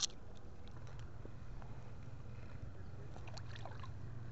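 Light water splashing as a short walleye is let go by hand at the water's edge, over a low steady drone; a sharp click right at the start.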